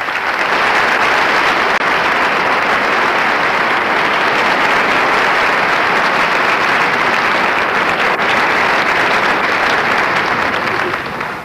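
Theatre audience applauding: dense, steady clapping from a large crowd that fades out near the end.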